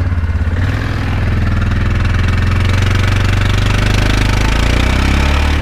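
Yamaha quad bike engine revved up from idle about half a second in and held at high revs under heavy load, straining to tow a loaded trailer up a muddy slope while the wheels spin. It drops back to idle right at the end.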